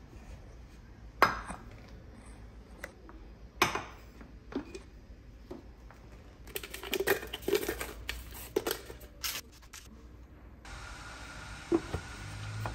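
A box of coffee capsules being handled: scattered knocks and clicks, then a quick run of rattling clicks about halfway through. A steady hiss comes in near the end.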